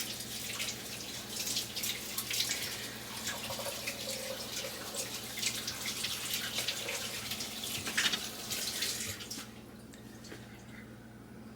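Kitchen sink tap running with uneven splashing as hands are washed under it, then shut off suddenly about nine seconds in.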